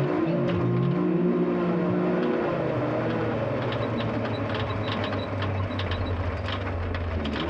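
Turbocharged side-by-side (UTV) engine under hard running. Its note rises and falls for the first couple of seconds, then drops to a lower, steadier drone, with sharp knocks and clatter from the rough course scattered through the second half.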